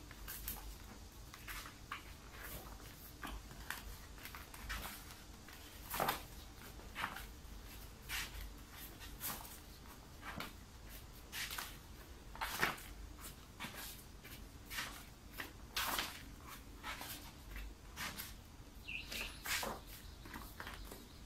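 Stiff PVC vinyl wallpaper sample sheets in a sample book being turned by hand, each page swishing and flapping down, roughly one every one to two seconds, over a steady low hum.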